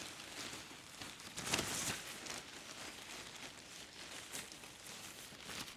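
Rustling and crinkling of lightweight tent fabric, handled as a trekking pole is pushed up into the tent's apex, in irregular bursts with the loudest about a second and a half in.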